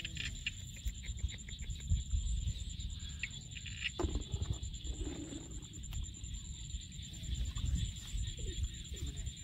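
Shallow muddy water sloshing and wet mud squelching as bare feet and hands dig into a mud bank, in irregular bursts, under a steady high-pitched buzz.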